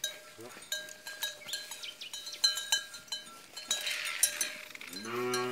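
A metal bell on a cow's neck clanking over and over as the cow moves, each clank ringing on a few steady tones. Near the end the cow starts a low moo.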